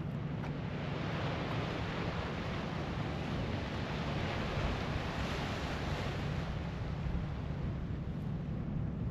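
Sea surf: a wave washes in, its hiss swelling from about a second in and dying away after about seven seconds, over a steady low hum.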